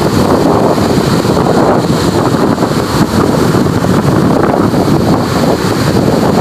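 Wind buffeting the microphone, loud and steady, over the wash of ocean waves breaking in the shallows.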